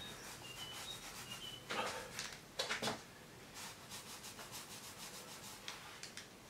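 Small sponge roller rubbing acrylic paint across a canvas in a series of short scratchy strokes, the loudest about two and a half seconds in.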